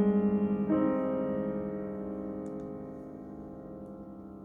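Piano ending a piece: a chord struck about a second in rings on and slowly fades away.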